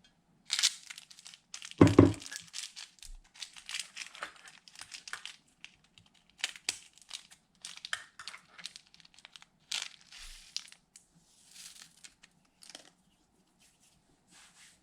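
Slime being squished and worked by hand, giving an irregular run of crackling clicks and small pops, with one louder, deeper pop about two seconds in.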